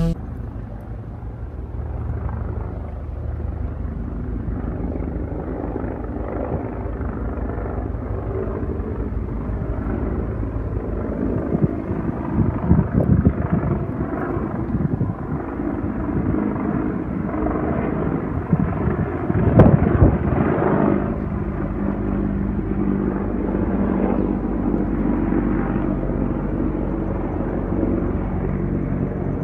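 Large helicopter flying overhead: a steady drone from the rotor and engines. It swells louder and rougher about 12 seconds in and again around 20 seconds.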